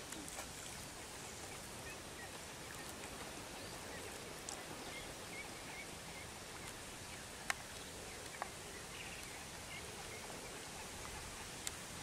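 Steady rural background noise with faint bird chirps and a few sharp clicks, the loudest about seven and a half seconds in.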